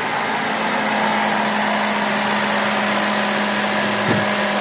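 Suzuki Celerio's 1.0-litre three-cylinder engine idling steadily just after being started, at a raised idle that is expected to settle slowly.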